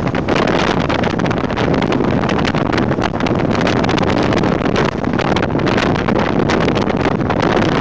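Jeep CJ7 driving fast on a wet dirt road, its engine and tyre noise heard under heavy wind buffeting on an outside-mounted microphone. A steady, dense rush with constant gusty crackle and no letup.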